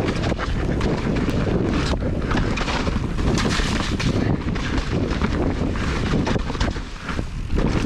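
Wind rushing over the microphone of a mountain bike rider's camera on a fast trail descent, with frequent knocks and rattles from the bike running over rough trail.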